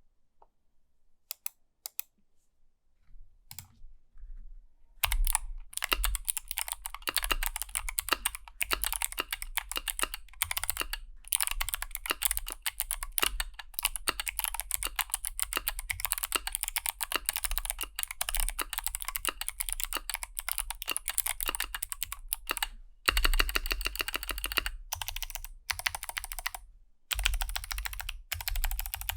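Keychron Q60 mechanical keyboard with unlubed Kailh Box Jade clicky switches and a tape mod being typed on. A few single key presses come first, then a few seconds in, fast continuous typing, with sharp clicks from the switches' click bars, broken by two brief pauses.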